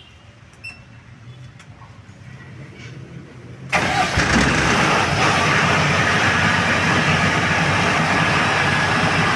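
Diesel generator set with a four-cylinder turbo diesel engine starting up: a faint low hum and a few clicks, then, just under four seconds in, a loud steady running noise that begins abruptly and holds.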